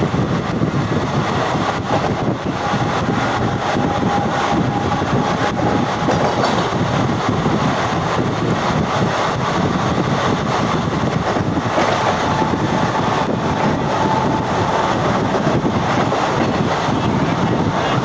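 Steady rumble of trains running at speed on parallel tracks, wheels on rail mixed with wind. A faint high whine comes in twice.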